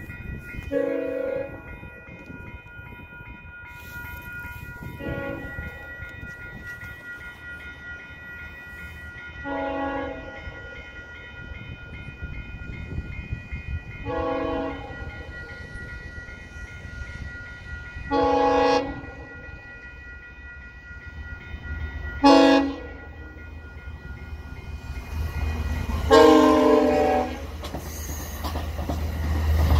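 Exo commuter train's horn sounding seven blasts a few seconds apart as it approaches, the last one the longest and loudest, over the steady ringing of level-crossing bells. The train's low rumble builds near the end as it reaches the crossing.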